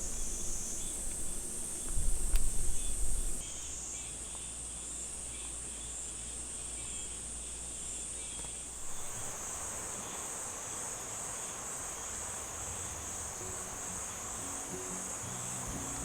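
Steady high-pitched chorus of insects chirring in summer foliage, with low rumbling in the first few seconds. About nine seconds in, the even rush of a flowing stream joins it.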